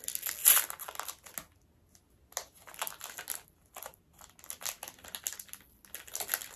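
Plastic snack wrapper crinkling in the hands: irregular bursts of sharp crackles, with a short pause early on.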